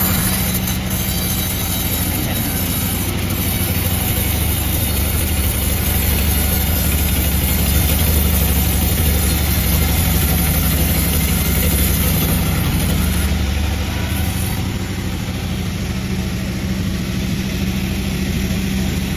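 Gasoline chainsaw engine running steadily, with an even, unbroken pitch.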